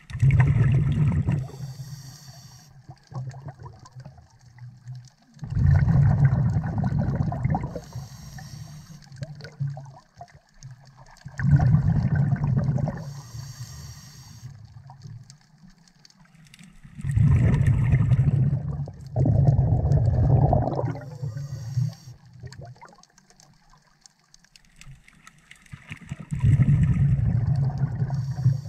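Scuba diver breathing through a regulator underwater: loud bubbling rushes of exhaled air every five to six seconds, with a short, high hiss between them.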